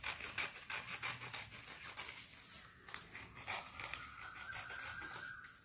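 Scissors snipping through newspaper: a quick run of short, sharp cuts with paper rustling as the strip is cut into small pieces.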